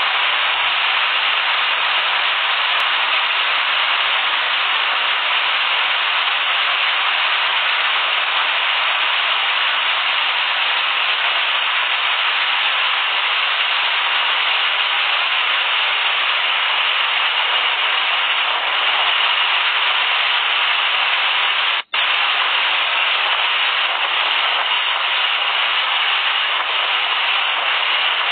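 Steady rush of wind and spray on the open deck of a fast patrol boat under way, with wind buffeting the microphone. It cuts out for an instant once, about three quarters of the way through.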